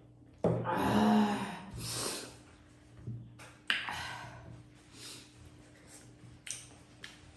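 A person's mouth sounds while eating at a close microphone: a loud breathy, voiced gasp or snort about half a second in, then several short sharp eating sounds spaced about a second apart.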